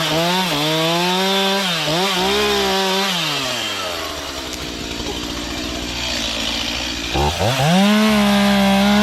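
Two-stroke Stihl chainsaw revved to full throttle and held for about three seconds, with a brief dip in pitch partway through. It falls back to idle, then revs up again and holds high near the end.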